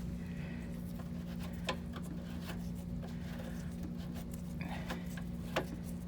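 A steady low hum with scattered sharp metallic clicks and ticks, two louder ones about a second and a half in and near the end, as the Porsche 911SC's oil tank drain plug is worked loose by hand and a wrench.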